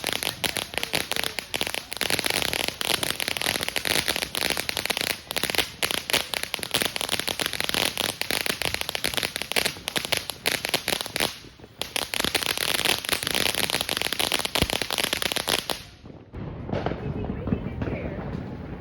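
Crackling firework fountain burning: a dense, rapid stream of crackles with a short lull partway through, cutting off sharply a few seconds before the end.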